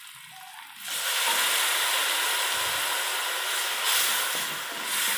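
A splash of water hitting hot oil and browned onions in a pan: a sudden loud hissing sizzle about a second in that then keeps going steadily as steam comes off.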